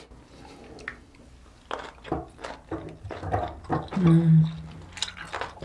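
Quiet at first, then low murmuring voices and a held 'mmm' hum about four seconds in, as someone tastes a piece of boiled octopus.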